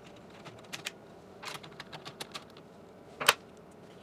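Scattered light clicks and taps of a socket extension and small bolts being worked out of a Predator 212 engine's plastic air cleaner housing by hand, with one sharper, louder click about three seconds in.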